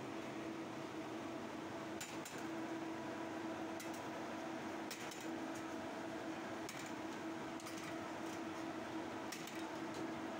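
Sharp metallic clinks, about ten of them scattered unevenly, from steel wire fish-grilling baskets being handled on a charcoal grill, over a steady hum and a constant noisy background.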